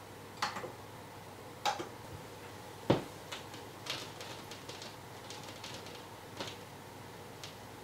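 Vinyl record's lead-in groove under the stylus of a repaired SAEC C-1 moving-coil cartridge, played through the speakers: a steady low hiss with scattered clicks and pops, the loudest about three seconds in, before the music starts.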